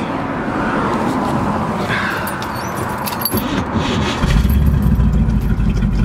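1970 Corvette's 350 V8 running through its side pipes, heard from inside the cabin, with a few light clicks and rattles. About four seconds in, the low exhaust rumble steps up sharply and stays much louder.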